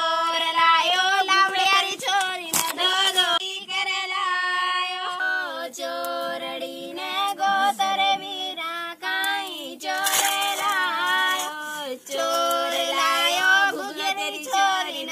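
High female voices singing a song with long held, wavering notes, with no clear instrumental backing.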